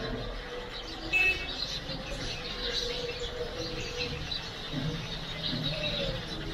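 Outdoor evening ambience of many birds chirping over a steady low hum of traffic and people, with one brief, louder high call about a second in.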